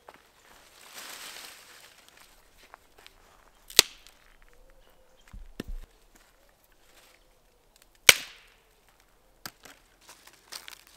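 Dry branches and sticks being handled: rustling as the bundle is moved, then two loud, sharp wooden cracks about four seconds apart, with a few dull knocks of wood set on the ground between them. Dry leaves start to rustle near the end.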